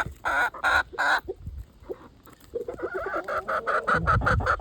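Young chickens pecking rapidly at an ear of corn on the cob, two quick runs of sharp pecks with a short lull between, and some clucking.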